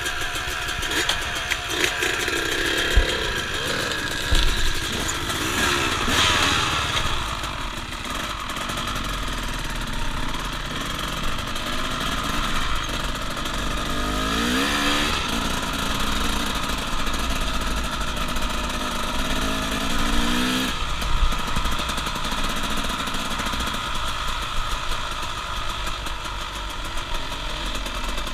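Dirt bike engine pulling away from a stop and running along at riding speed. Its pitch climbs a few seconds in, again about halfway through and once more about two-thirds through, as the rider accelerates through the gears.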